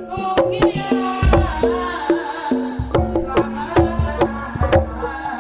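Live Banyumasan lengger gamelan music: a fast run of struck pitched notes over hand-drum strokes, with a deep bass tone coming in about a second in.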